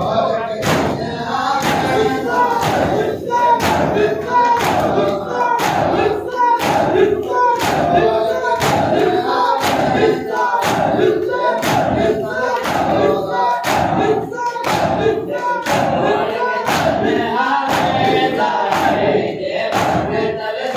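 A crowd of men chanting a noha in unison with matam, hands striking chests together in an even beat of about one and a half slaps a second.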